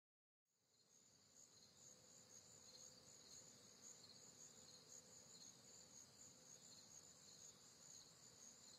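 Faint night ambience of crickets chirring steadily, fading in about half a second in after a moment of total silence.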